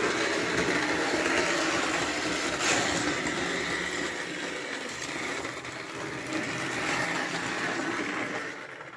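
Toy train locomotive running on three-rail track: a converted Tri-ang dockyard shunter's electric motor whirring and its wheels rattling over the rails, noisy because of its oversized wheels. The running eases off near the end.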